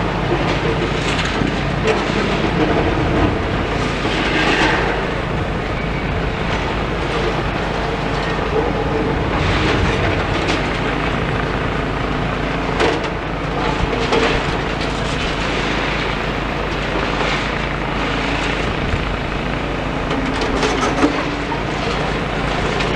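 Demolition excavator's diesel engine running steadily, with several louder swells of noise and a sharp knock about thirteen seconds in.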